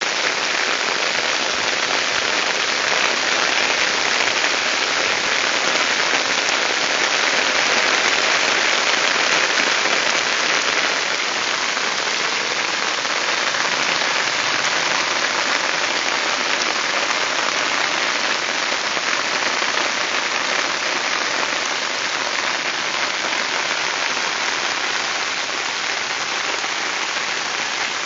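Heavy rain pouring onto the open surface of a lake: a dense, steady hiss of countless drops hitting the water.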